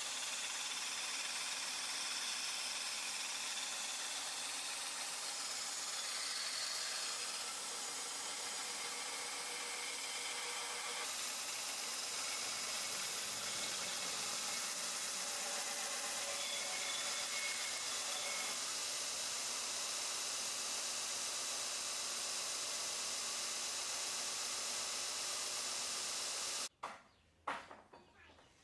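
A 2x72 belt grinder running, its abrasive belt giving a steady hiss as it travels over the bearing rollers. The sound cuts off abruptly near the end, followed by a few clicks and knocks.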